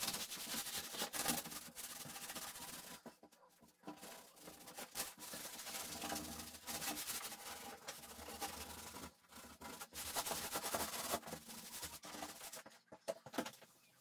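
A cloth in a gloved hand rubbing and scrubbing grime off a painted wooden door, in repeated strokes, with a short pause about three seconds in and another near the end.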